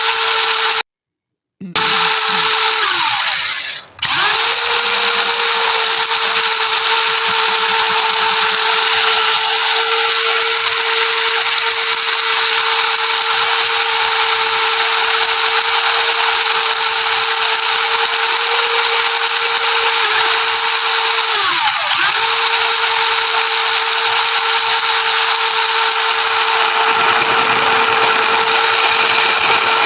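Electric motor and gearbox of an RC crawler car whining at a steady pitch, easing off and picking up again about four seconds in and once more about two-thirds of the way through. The sound cuts out completely for under a second about a second in.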